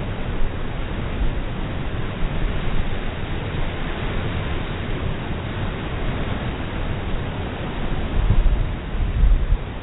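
Waves washing ashore as a steady rushing surf, with wind buffeting the microphone in low rumbles near the end.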